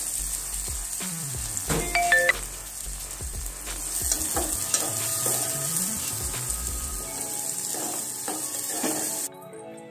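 Shallots, green chillies and curry leaves sizzling in hot oil in a metal pot, stirred with a metal spoon that scrapes and clinks against the pot: the tempering stage of a curry. The sizzle stops abruptly near the end.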